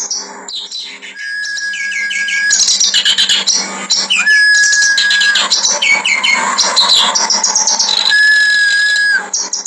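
Clamorous reed warbler (kerak basi) singing a loud, harsh, chattering song. Each phrase opens with a long steady whistled note, and the phrases repeat about every three seconds.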